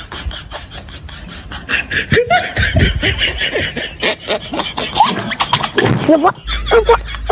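People laughing loudly, in quick bursts that grow louder from about two seconds in.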